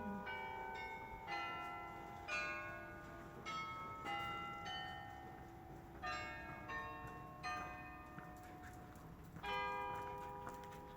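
Church bells playing a slow melody: about ten notes struck at uneven intervals, each ringing on and overlapping the next.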